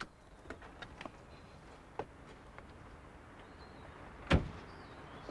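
A sports car door shut with a single heavy thud about four seconds in, after a few faint clicks over low background hiss.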